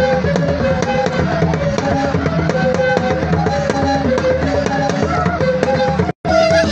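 Traditional Ghanaian drum ensemble playing a fast, dense rhythm, with a repeating high melody of short held notes over the drums. The sound cuts out for a moment near the end, then the music resumes.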